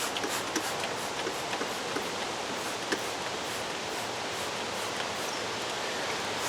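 Steady, even background hiss with a few faint light ticks.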